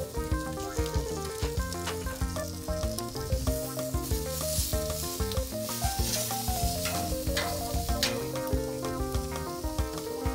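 Background music with a melody, over the sizzle of a tri-tip roast on hot grill grates; the sizzle swells for a few seconds in the middle as the roast is turned with metal tongs, with a few light clicks of tongs on the grate.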